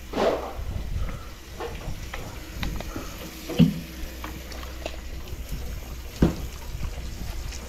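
Wet, soapy hands being lathered and rubbed together after a squirt of dish soap from a squeeze bottle, with small wet clicks and a couple of short knocks, the sharpest about three and a half and six seconds in.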